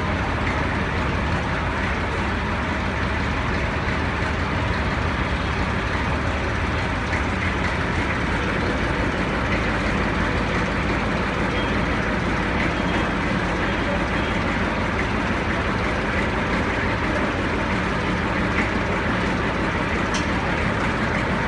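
Steady running of the engine or power unit that drives a tipping trailer's telescopic hydraulic cylinder, a constant low hum under a broad mechanical noise, while the tipper body lowers onto the chassis.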